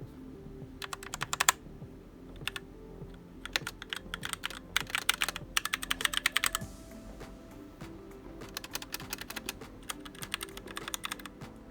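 Keys on a SteelSeries Apex 7 mechanical gaming keyboard being typed in quick flurries of clicks. There is a short burst about a second in, a longer run in the middle, and another run near the end.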